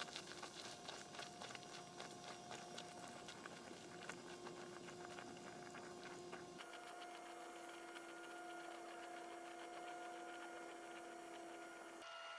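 Faint footsteps crunching on a gravel road, fading as the walkers move away, over a faint steady hum. About two-thirds of the way through the steps stop abruptly, leaving only the hum and a light hiss.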